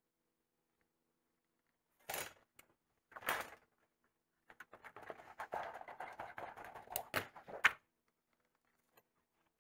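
Sheet metal being handled and slid on a workbench: two short scraping sweeps, then about three seconds of scraping and rustling that ends in a few sharp clacks.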